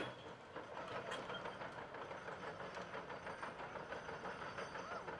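Volvo EC460C crawler excavator travelling on pavement: its diesel engine runs steadily under a constant rattle and clank of the steel tracks, with a sharp knock at the start and another about a second in.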